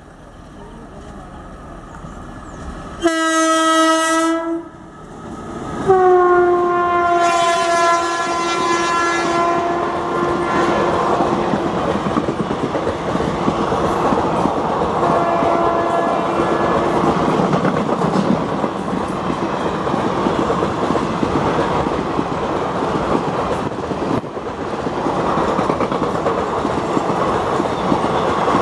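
WAP-4 electric locomotive running through at speed, its rumble growing as it approaches, sounding its horn: a short blast about three seconds in, a longer one from about six seconds, and a fainter short one near the middle. After that its passenger coaches roll past close by with a steady rumble and clickety-clack over the rail joints.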